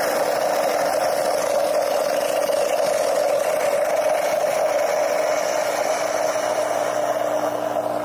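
Gaggia Classic espresso machine's steam wand letting out a steady, loud rush of steam and hot water into a steel milk pitcher, with the pump running. The pump is forcing cooler water into the boiler and out through the wand, bringing the boiler down from steaming to brew temperature.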